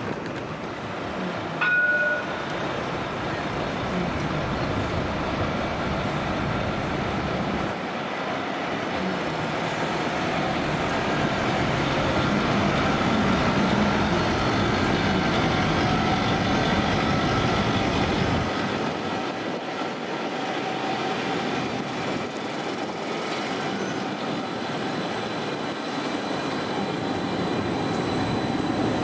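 Edinburgh tram (CAF Urbos 3) running along street track, with city traffic behind it. It gets louder through the middle and the low rumble drops away about two-thirds through. There is a short, loud tone about two seconds in.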